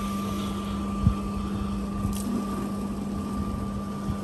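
A steady mechanical hum with a constant low tone, and one short low thump about a second in.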